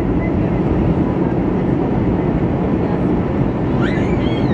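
Steady cabin noise inside an Airbus A320 on its landing approach: a constant rush of airflow and engine drone heard from the front row.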